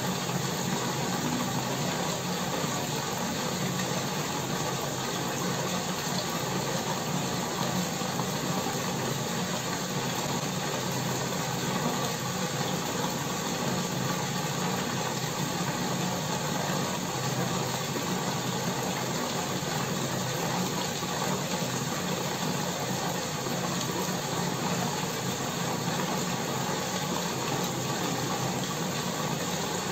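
Small aquarium air pump humming steadily, with an even hiss of air from an air stone bubbling up through the water column of a plexiglass bubble wall.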